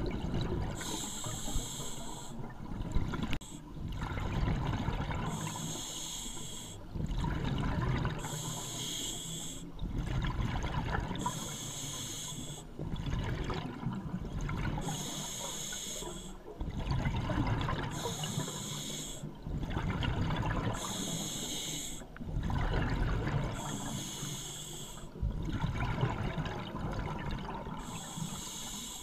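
Scuba diver breathing through a regulator, heard underwater: a short hiss on each breath alternates with the low bubbling gurgle of exhaled air, repeating every few seconds.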